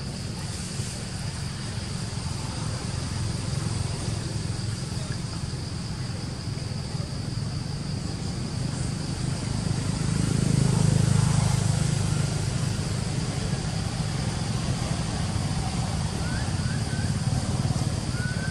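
A steady low rumble that swells about ten seconds in, under a constant high insect drone. Near the end come a few short rising squeaks from a baby macaque.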